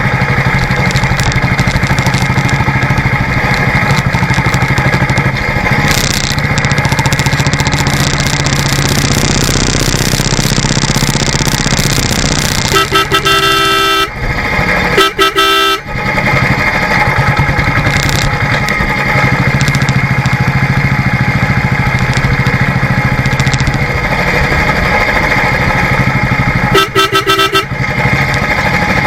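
Royal Enfield Classic Electra's single-cylinder engine running steadily under way, with wind and road noise. A vehicle horn honks twice about halfway through and once more near the end.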